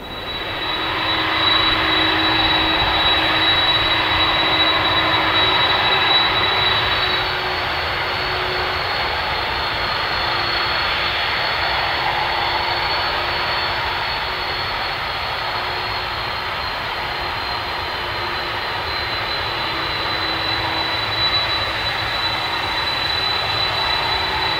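Jet airliner engines running steadily. First a twin-engine airliner's turbofans at takeoff power as it climbs out, with a high steady whine. About seven seconds in the sound changes to a Boeing 747's four turbofans running steadily as it rolls slowly along the runway, the high whine coming up again near the end.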